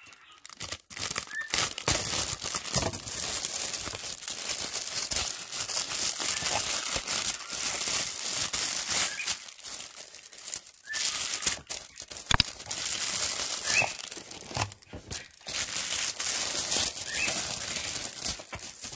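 Packaging crinkling as it is handled and unwrapped by hand, in long stretches broken by a few brief pauses.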